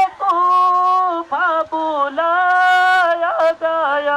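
A single voice singing a slow chant in long, steadily held notes, with short breaks and pitch bends between phrases.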